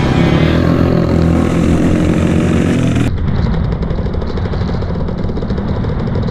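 Dirt bike engine running under way, heard from the rider's own bike. About three seconds in, the sound cuts abruptly to another riding clip with a pulsing engine sound.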